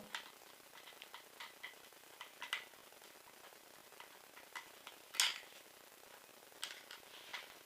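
Faint, scattered clicks and ticks of a screwdriver and small screws and parts being handled on an airsoft M4 during disassembly, with one louder click about five seconds in.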